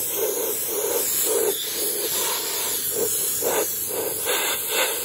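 Harbor Freight media blaster spraying compressed air and blasting media against a painted cast iron base: a loud, steady hiss while it strips the flaking paint.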